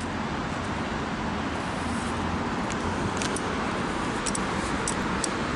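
Steady rumble and hum from a standing ET4A electric multiple unit at a platform, with a few faint high clicks in the second half.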